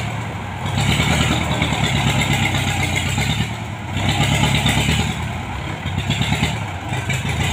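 Belarus MT-50 tractor's diesel engine running under load while clearing land. Its drone rises and eases every few seconds.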